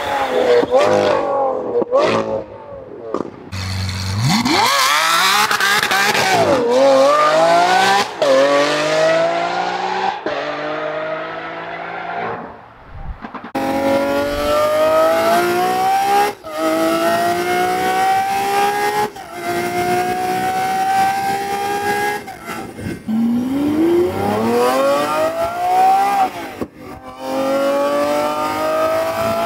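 Lamborghini Aventador SVJ's naturally aspirated V12 through a Valvetronic Designs equal-length titanium race exhaust. For the first half it is revved hard past the listener, the pitch swooping up and dropping as the car goes by. About halfway through it is heard from the cabin, accelerating hard with the pitch climbing through several upshifts, each one a brief cut in the sound.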